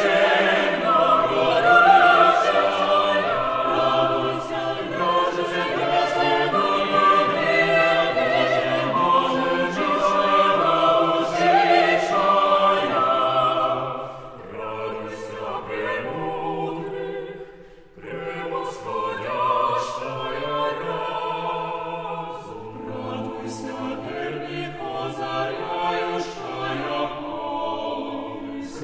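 Choir singing a Suprasl kant, a Baroque devotional song, in several-part harmony, with short breaks between phrases about halfway through.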